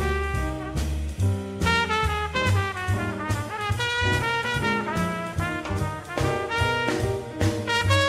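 Jazz trumpet soloing live, playing a line of short and held notes that move up and down, with a bass walking low notes and drums keeping time behind it.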